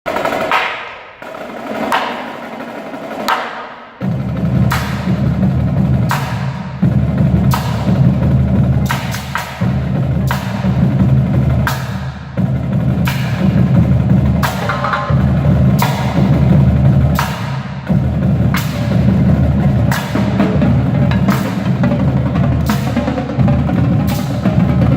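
Percussion ensemble playing, with sharp drum and wood-block-like strokes about once a second. About four seconds in, a heavy, sustained low layer comes in under the strokes and stays.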